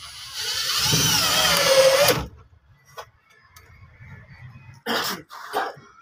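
Electric drill driving a screw through a circular saw's base plate into the underside of a wooden table. It runs for about two seconds, its pitch wavering and rising under load, then stops. Two short bursts come near the end.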